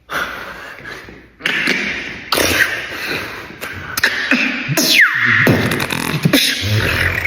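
Beatboxer making vocal sound effects with the mouth: a string of separate hissing, buzzing bursts, a high pitch sliding sharply down about five seconds in, and deep bass hums near the end.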